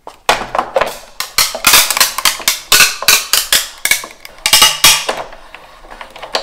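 Sizzix Big Shot Foldaway die-cutting machine being hand-cranked as the clear cutting plates and die pass through its rollers: a loud run of sharp, irregular clacks and knocks, several a second.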